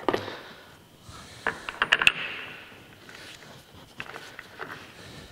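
Steel jaws of a six-jaw lathe chuck clinking as one is picked up from the others and fitted into its slot: a quick cluster of sharp metallic clicks about two seconds in, then a few fainter clicks and scrapes.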